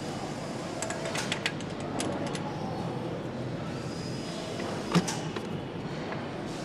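Factory-floor noise: a steady mechanical hum with scattered light metallic clicks and one sharper knock about five seconds in.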